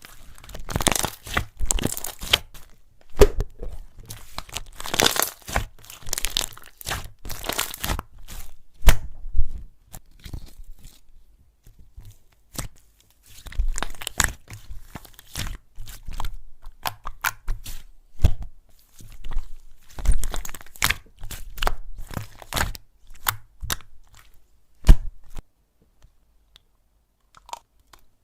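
Slime being pressed, squeezed and pulled apart by hand, giving runs of many sharp little clicks, pops and crackles. There is a lull in the middle and a loud single snap about three seconds before the end, after which it goes quiet.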